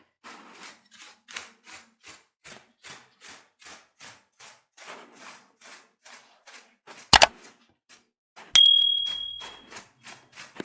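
Small brush scrubbing dust from a laptop's internals in short, quick strokes, about three a second. A sharp click about seven seconds in, then a loud metallic ding that rings out for about a second.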